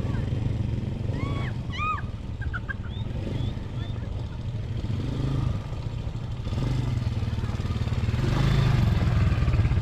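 ATV engine running under gentle throttle as it is ridden along a trail, getting louder in the last few seconds as it is given more gas.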